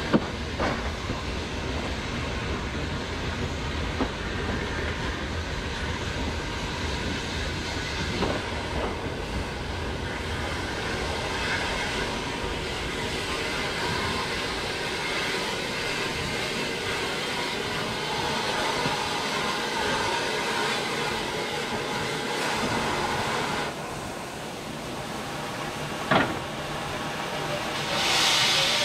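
Hunslet 0-6-0 saddle-tank steam locomotive moving slowly, heard from the cab: a steady running rumble of wheels on track, with a few sharp clicks spaced several seconds apart. A burst of steam hiss builds near the end.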